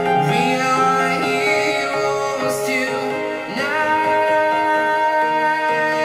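A song with singing played through a Bose SoundLink Revolve Bluetooth speaker, with a long held note over the second half.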